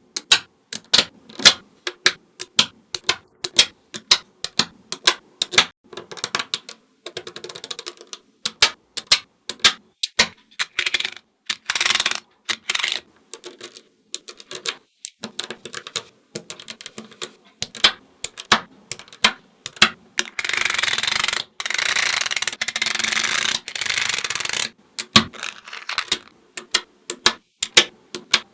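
Small neodymium magnetic balls clicking and snapping together one after another as they are placed. There are dozens of sharp clicks at uneven spacing, and for about four seconds near two-thirds of the way through an unbroken clattering rattle of many balls.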